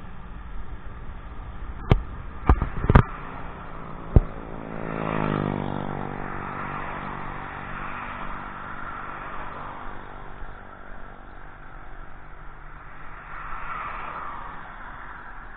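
Road traffic passing close by. About five seconds in, a vehicle passes with its engine note dropping as it goes by, followed by steady tyre noise and another vehicle passing near the end. A few sharp knocks come about two to four seconds in.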